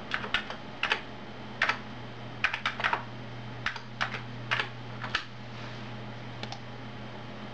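Keystrokes on an Amiga computer keyboard, typed in quick clusters of clicks while an IP address is entered, stopping about six and a half seconds in. A steady low hum runs underneath.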